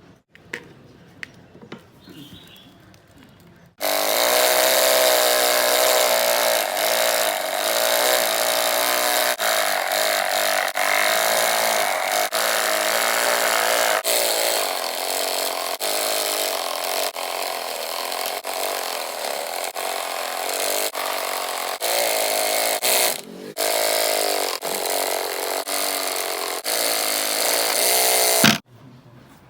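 Homemade electric jigsaw switched on about four seconds in and running loud and steady, its motor pitch wavering as it saws wood. It cuts out for a moment about three quarters of the way through, then stops shortly before the end.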